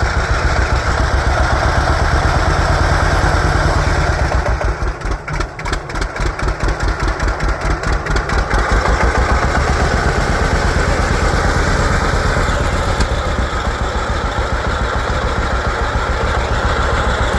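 1950 John Deere Model A tractor's two-cylinder engine running. Its pulse slows to distinct, separate beats with a dip in loudness from about five seconds in, then picks back up to a faster, steady run after about eight seconds.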